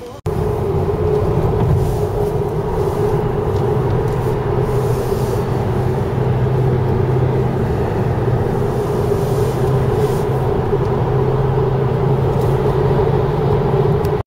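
Steady drone of engine and tyre noise inside a Porsche sports car's cabin cruising at motorway speed, with a constant low hum that does not rise or fall; it starts suddenly just after the beginning.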